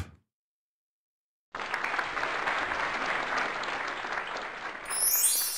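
Applause sound effect, starting about one and a half seconds in and running steadily for about four seconds. Near the end a high, twinkling chime comes in over it.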